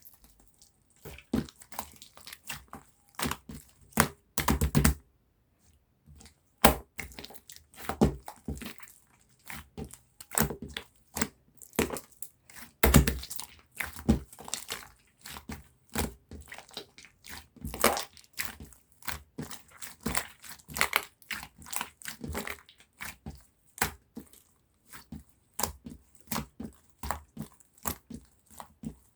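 Bubble-filled slime being squished and pressed by hand, its trapped air bubbles popping in irregular sharp clicks and crackles.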